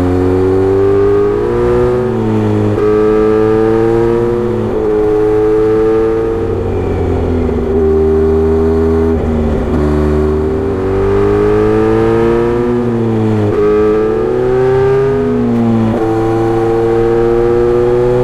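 Kawasaki Z900RS inline-four running through a Misty Kintaro short-pipe muffler with a 70 mm silencer, loud and under way. The exhaust note rises and falls over and over, with several sudden steps in pitch as the throttle and gears change.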